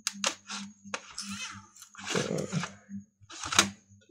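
Plastic clicks and scraping from a Lenovo IdeaPad laptop's case and screen assembly being handled and pried apart: several sharp separate clicks with a few longer scrapes between them, over a steady low hum.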